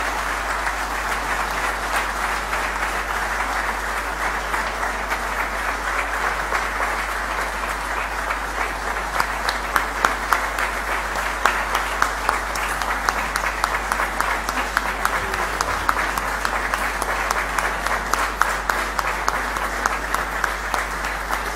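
A large audience applauding steadily. From about ten seconds in, single sharp claps stand out more within the applause.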